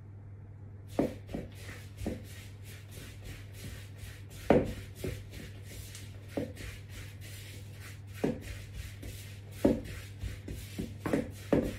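A mixing utensil scraping and knocking against a mixing bowl as crumbly dough of flour and melted ghee is stirred, in irregular strokes, the loudest about four and a half seconds in. A steady low hum runs underneath.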